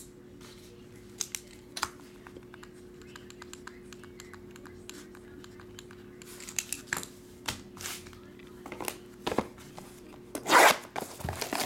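Ballpoint pen scratching on paper as a name is written, with scattered small handling clicks over a faint steady hum. About ten and a half seconds in, a loud crinkling rip of plastic shrink-wrap being torn on a trading-card box.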